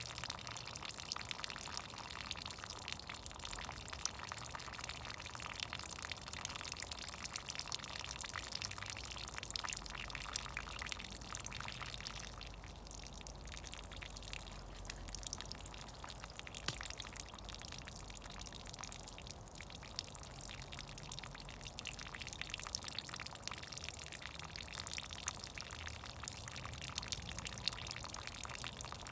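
Melting snow dripping and trickling: a dense, steady patter of many quick drips over a running wash of water.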